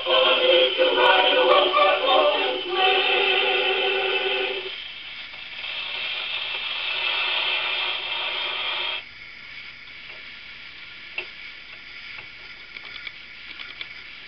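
Closing music of a record playing through the small built-in speaker of a 1960s Columbia C-1201 portable tube record player, loud at first and then softer. It cuts off abruptly about nine seconds in as the tonearm is lifted, leaving faint hiss and a few light clicks of the tonearm and controls being handled.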